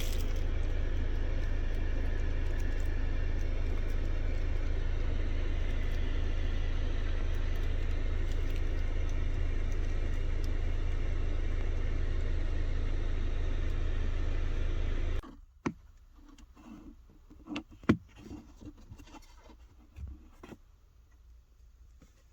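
Car engine running steadily at idle with a low hum, cutting off abruptly about fifteen seconds in, followed by a few faint clicks and knocks.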